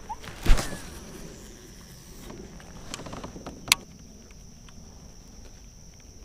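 A loud thump about half a second in and a sharp click a little after three and a half seconds, over a steady high-pitched insect drone.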